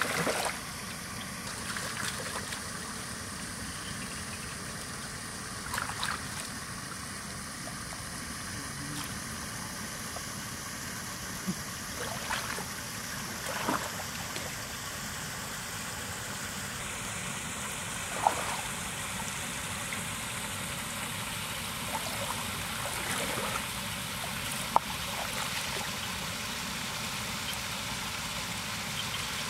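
Hands sloshing and splashing in shallow muddy water while groping for fish, with a handful of short splashes scattered over a steady background hiss.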